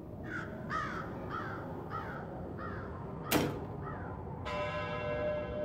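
Crows cawing, a string of short falling calls about two a second, over a steady low rumble. A single sharp knock comes about three and a half seconds in, and a long ringing tone with many overtones begins near the end.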